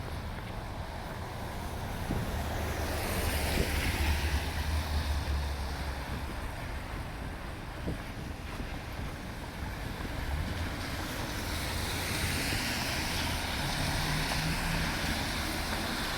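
City street noise in a snowstorm: traffic passing on a slushy road, with tyres hissing and a low engine rumble that swells twice as vehicles go by, and wind buffeting the microphone.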